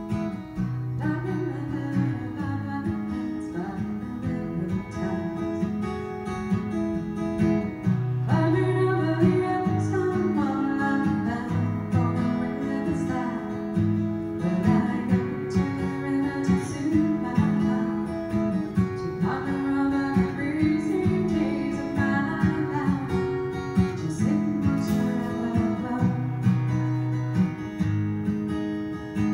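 Acoustic guitar strummed, playing the chords of a song.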